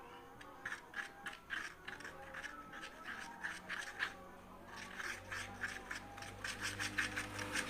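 Slime mixture of Rinso liquid detergent and slime activator being stirred in a container: irregular sticky clicks and scrapes of the stirrer, coming faster in the second half.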